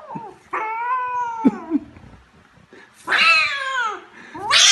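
Frightened kitten yowling in drawn-out calls: one about half a second in, a louder one about three seconds in that falls in pitch, and another starting near the end.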